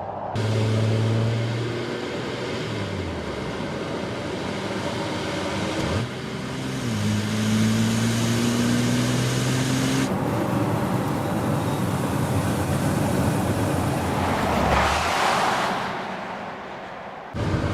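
Porsche Cayenne E-Hybrid's turbocharged V6 engine running while driving, in several short cuts: a steady note that drops a few seconds in, then a note that climbs steadily as the car accelerates. Near the end a louder rushing noise swells and fades.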